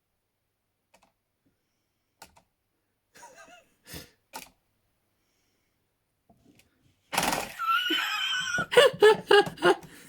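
A few faint clicks, then about seven seconds in a sudden loud outburst with a wavering high note, running into rapid bursts of laughter.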